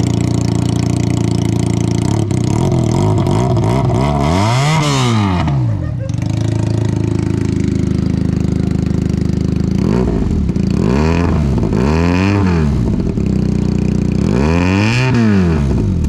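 Benelli TNT 300 parallel-twin engine running with its exhaust removed, idling loud and steady between short throttle blips: one about five seconds in, three quick ones around ten to twelve seconds, and one more near the end.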